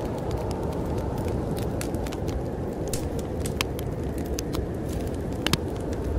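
Wood fire crackling in a fireplace, with scattered sharp pops and two louder snaps together near the end, over a steady low rush of storm wind.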